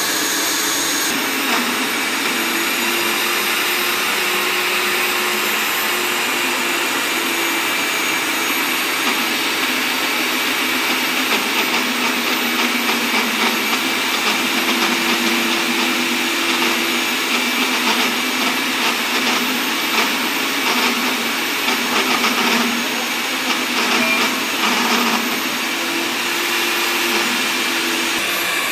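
Stand-mounted electric diamond core drill running steadily with a whine as its core bit bores into a concrete floor. The level wavers a little through the middle stretch.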